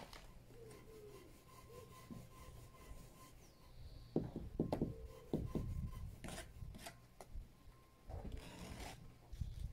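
Steel brick trowels scraping and tapping in mortar on top of a concrete-block wall, as mortar is spread along the course. Several sharp taps come in quick succession around the middle, and a longer scrape follows near the end.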